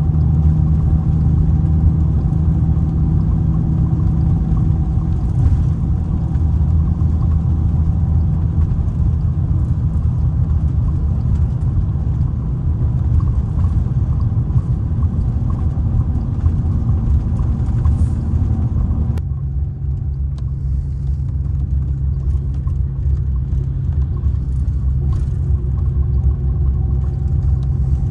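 Mercedes-Benz O-500R coach's diesel engine running steadily under way, a low, even drone. About two-thirds of the way through, the note drops slightly and the higher part of the sound falls away at once.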